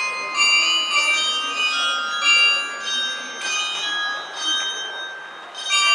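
A melody of struck bells, a few notes a second, each note ringing on and fading; it thins out briefly and is struck again near the end.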